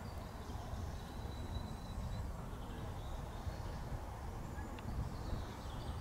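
Open-air background noise: a steady low rumble, with a few faint high chirps over it.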